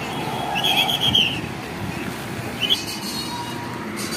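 Bus conductor's pea whistle blown in one warbling blast about half a second in, with a short blip near three seconds, over a low hum of road traffic.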